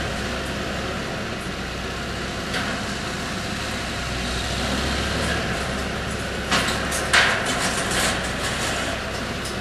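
Tractor engine running steadily as its front-end loader works in the wreckage of a demolished barn. Two sharp crashes of debris come about two-thirds of the way through, followed by a few lighter clatters.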